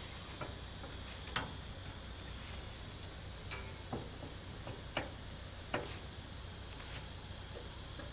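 A handful of sharp, irregular clicks and taps, roughly one every second, over a steady low background hiss.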